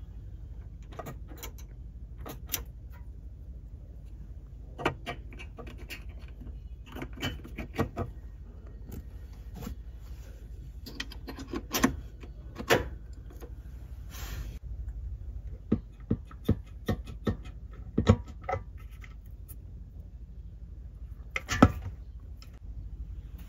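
Short clicks and knocks from handling cabin fittings: a wall light switch pressed, a plug pushed into a wall socket, and a small cabinet door opened, with the loudest knock near the end. A steady low hum from the ship runs underneath.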